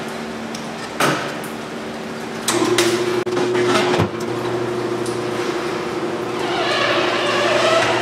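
John Bean tire changer working a large all-terrain truck tire onto its rim. Its motor starts a steady hum about two and a half seconds in, with a sharp knock about a second in and another at about four seconds. The sound swells near the end as the tire turns on the machine.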